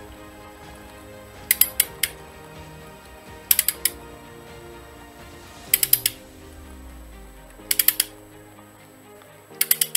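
Long-handled ratchet wrench clicking as bolts on a motorcycle engine's side cover are tightened, with a short run of three or four clicks about every two seconds on each return stroke.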